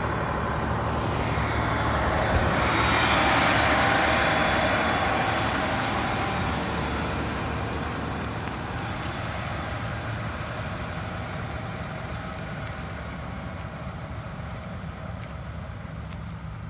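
Engines of combine-harvest machinery (a John Deere combine and grain cart) running steadily, with a broad rushing noise. It swells loudest about three to four seconds in, then slowly fades.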